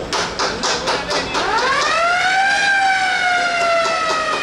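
A siren winds up in pitch over about a second, peaks, then slowly falls. Under it runs a steady, quick rhythm of percussion beats.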